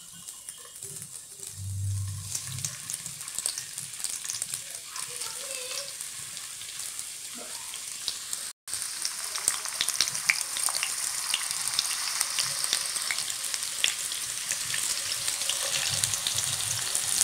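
Stuffed tinda frying in hot oil in a karahi: a steady sizzle with crackling spits as the gourds are added one at a time. The sizzle gets louder after a momentary break about halfway through.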